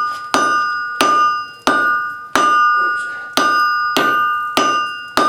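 Hammer blows on hot steel over a blacksmith's anvil, about nine strikes at an even pace of nearly two a second, the anvil ringing with a clear, sustained tone after each blow. The steel is a forge-welded billet being hammered to test and close the weld.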